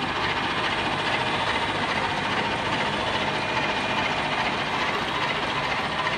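Steady, continuous grinding and machine noise from a motor-driven blade grinder working on the rotating cutter blades of a shredding machine, the cutter running in reverse so the blades are sharpened.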